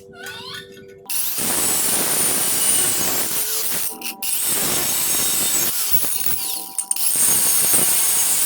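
Power tool running under load: a loud, hissing rush with a high whine that starts abruptly about a second in, dips briefly twice, and runs on past the end.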